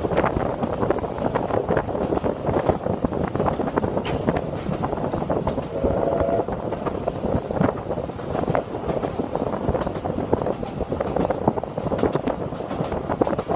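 Narrow-gauge steam train carriage running along the line, its wheels clattering over the rails in a continuous, irregular rattle, with a brief steady tone about halfway through.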